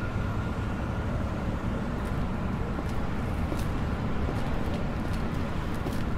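Steady low rumble of distant city traffic, with footsteps clicking on the pavement from about two seconds in, coming more often toward the end.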